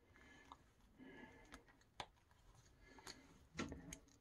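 Near silence with a few faint scattered plastic clicks, a small cluster of them near the end: interchangeable hands being pushed onto an action figure's wrist pegs.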